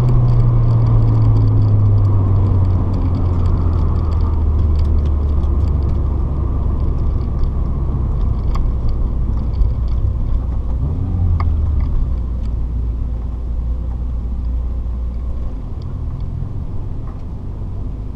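Honda Civic's engine and road noise heard from inside the cabin, the engine note dropping as the car slows, with a brief rise about eleven seconds in, then settling into a low steady drone.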